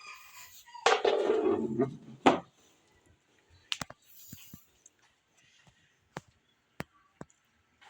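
A cat's loud, harsh vocalisation lasting about a second and a half, falling in pitch, followed by several sharp clicks.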